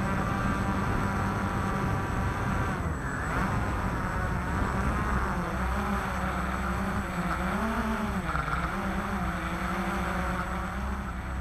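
Walkera QR X350 Pro quadcopter's motors and propellers whirring as heard from its own on-board camera. The pitch wavers up and down as the motors speed up and slow down during the climb, with several quick rises and falls past the middle.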